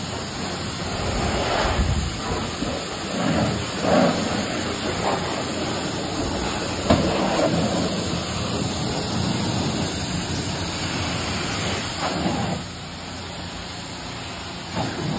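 High-pressure car-wash spray wand blasting water into a muddy engine bay, a steady rushing hiss of water. It eases off for a couple of seconds near the end, then picks up again.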